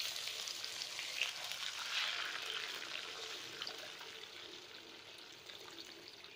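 Water poured into a hot pan of fried tilapia, tomato and onion, sizzling and splashing as it hits the hot oil; the sizzle dies away gradually as the water fills the pan.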